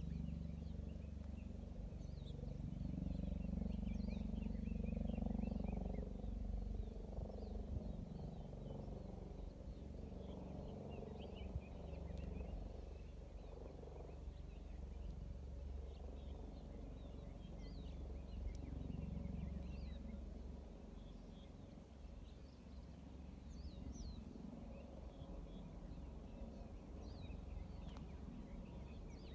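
Wind rumbling on the microphone, loudest about five seconds in, with birds chirping in short calls throughout.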